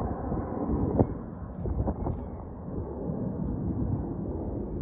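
Steady low rumble of a jet airliner's engines as it climbs away after takeoff, with a few short wind knocks on the microphone, one about a second in.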